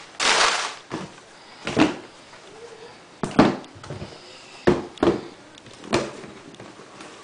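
A cardboard sneaker box and its tissue paper being handled: a short rustle just after the start, then a handful of short knocks and bumps about a second apart.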